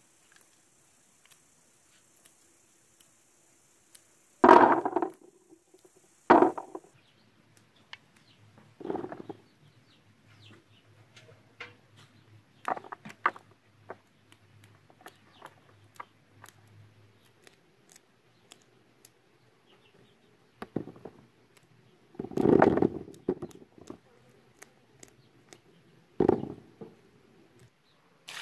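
Unripe grapes dropping by the handful into a plastic basin: several short rattling pours a few seconds apart, the loudest about four seconds in and again just past twenty seconds, with scattered light ticks of single grapes between them.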